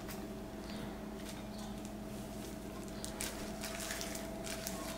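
Yogurt being spooned onto ground beef in a bowl: faint soft squishing and light spoon taps, over a steady low hum.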